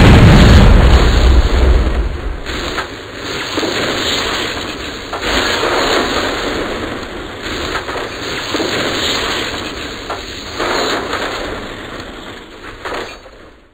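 An explosion's heavy low rumble fades over the first couple of seconds. A rough, noisy roar follows, swelling and ebbing for about ten seconds before it cuts off suddenly near the end.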